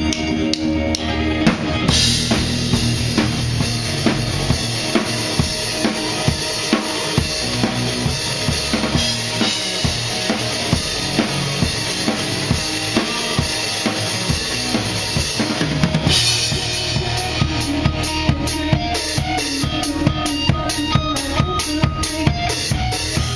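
A rock drum kit played in a song with the band: kick drum and snare under a heavy wash of cymbals, switching about two thirds of the way through to quick, even hi-hat strokes, with steady pitched tones from other instruments underneath.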